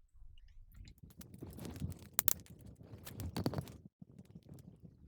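Handling noise at a workbench: a string of sharp clicks and short rustles, the loudest clicks a little over two seconds in and another cluster about three and a half seconds in.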